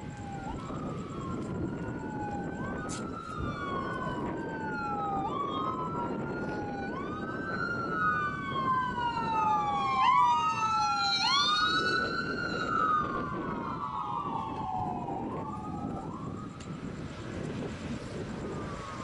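Emergency vehicle sirens wailing in a slow up-and-down cycle of about two seconds. A second siren overlaps the first partway through, the two are loudest around the middle, and both fade out near the end.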